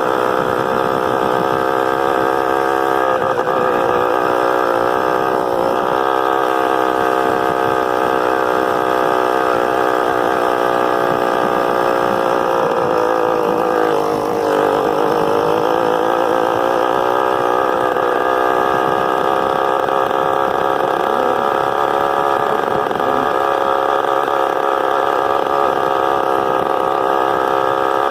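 Honda CG 125 single-cylinder four-stroke motorcycle engine running under way, its pitch mostly steady with a small dip and recovery about fourteen seconds in.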